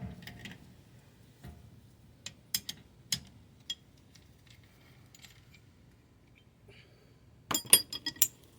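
Metal tools clinking: a few scattered light clicks, then a quick cluster of louder metallic clinks near the end.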